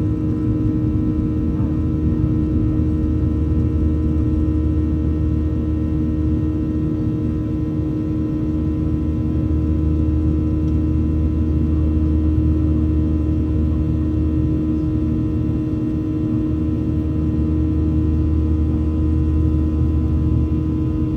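Boeing 737-800 cabin noise heard from a passenger seat: the CFM56-7B turbofans hum steadily at constant thrust over a deep airflow rumble, with several steady engine tones and no change in power.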